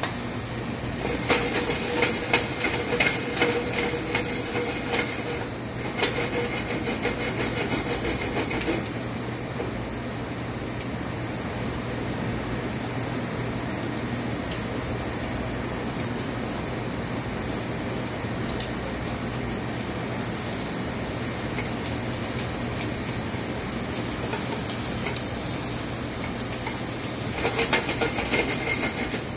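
Shrimp and chopped garlic sizzling in hot olive oil in a skillet on a gas burner: a steady frying hiss, with louder crackling spells in the first several seconds and again near the end.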